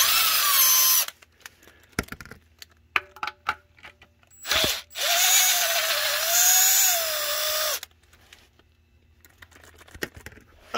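Milwaukee cordless power tool on a long socket extension spinning out oil pan bolts: a motor whine for about a second at the start, then a longer run of about three seconds, pitch wavering, from about five seconds in. Light clicks and rattles of the socket and tool come between the runs.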